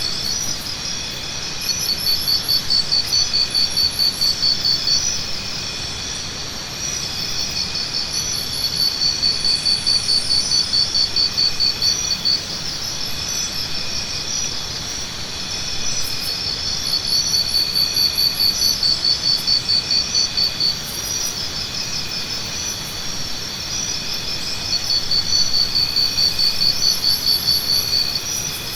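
Jungle insects chirring: a steady high chorus, with a louder pulsing trill that comes in bouts of three to four seconds about every eight seconds.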